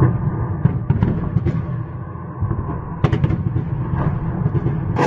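A series of explosions: a continuous low rumble broken by repeated sharp bangs, several close together about three seconds in.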